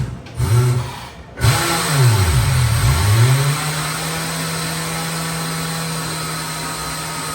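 A motor runs in a short burst, then starts up about a second and a half in, its pitch swooping down and back up before it settles into a steady hum.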